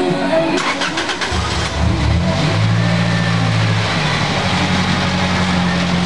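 Toyota Celica's four-cylinder engine is cranked by the starter for about a second and catches. It flares up in revs briefly, then settles to a steady idle. The engine is being restarted to diagnose a cylinder 4 ignition misfire (code P0354).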